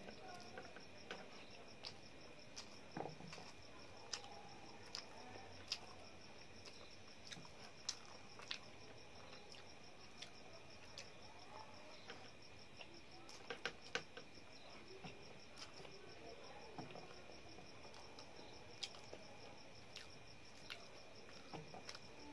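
Scattered sharp clicks and smacks of hand-eating: fingers working rice on a steel plate and mouth sounds of chewing. Behind them a steady, high, faint trill of crickets.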